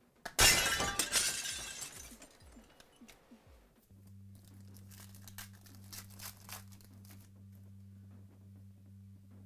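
Foil wrapper of a Chronicles Baseball trading-card pack torn open by hand: a sudden loud crinkling rip about half a second in that fades over a second or so. Softer crinkles of foil and cards being handled follow, over a steady low hum that starts about four seconds in.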